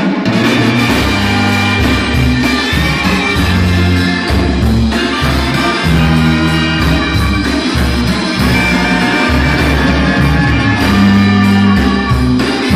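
A live band playing Latin music, with a strong bass line moving from note to note every second or so under sustained higher instruments.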